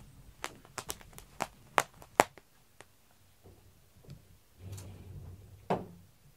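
About eight sharp taps in quick succession over the first two seconds, the last two the loudest, then a single tap near the end.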